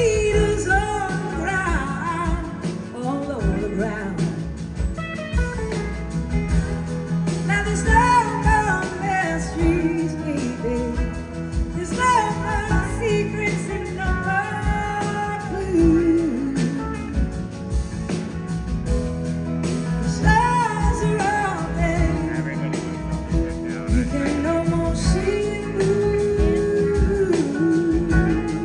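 Live blues-rock band playing: singing and gliding guitar lines over bass and drums.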